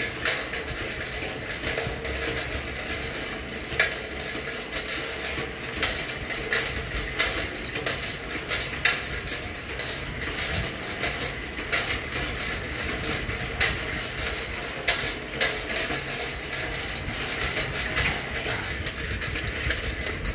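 Bicycle being ridden along a paved path: the bike rattles and clicks irregularly over a steady rush of tyre and air noise.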